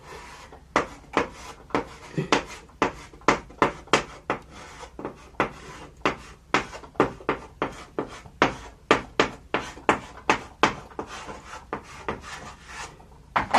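A long run of short, sharp taps or clicks, irregular, about two to three a second.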